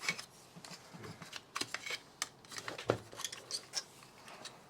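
Irregular small clicks and light clatter of hands handling clip-on wire connections while the power supply to the Robo Crimp is checked; the tool itself is not running.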